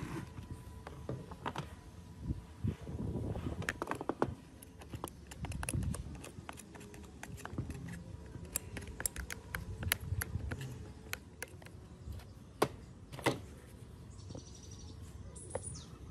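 Hand tools and parts clicking, tapping and scraping against the dirt-caked housing of an old Husqvarna chainsaw as it is taken apart, in irregular sharp clicks over a low rustle. A faint high twitter comes in near the end.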